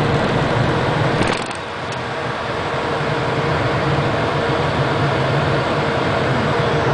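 Steady noise of a Cessna Citation business jet heard in the cockpit during the landing roll: its jet engines humming with rushing air and rumble. About a second in there is a short crackle, after which the deep rumble drops for a moment before building back.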